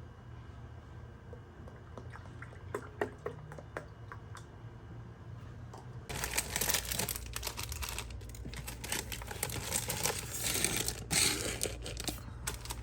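A few light clicks and taps, then from about six seconds in a loud, irregular crinkling rustle of something being handled.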